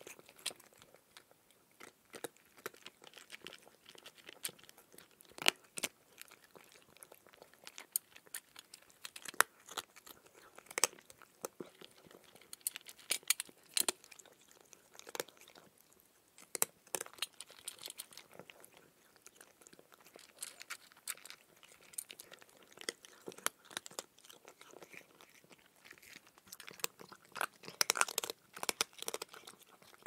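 A cat chewing dry kibble: irregular sharp crunches and clicks as the pieces break, growing denser near the end.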